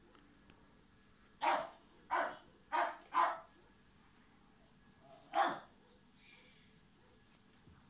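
Dog barking: four short barks in quick succession, then one more about two seconds later.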